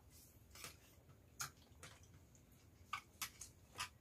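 Near silence broken by about five faint, sharp clicks of a spoon and fingers against plates as people eat a meal.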